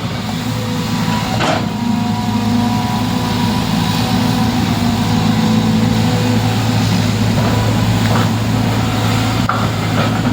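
An engine running steadily, with one sharp knock about a second and a half in.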